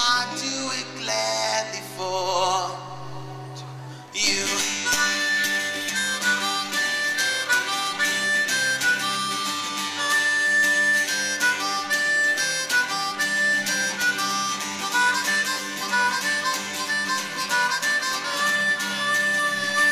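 Acoustic guitar under a held sung note with vibrato. About four seconds in a harmonica solo comes in over strummed acoustic guitar chords, and the harmonica plays bright held notes to the end.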